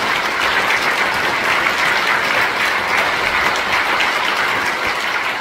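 Audience applauding steadily: a dense wash of many hands clapping together.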